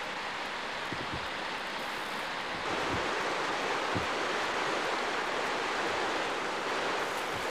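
River water rushing over shallow rapids, a steady wash of noise that gets louder about two and a half seconds in. A few soft low thumps sound under it.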